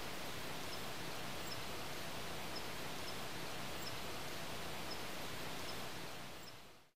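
Steady outdoor background hiss with a few faint, scattered high chirps, fading out just before the end.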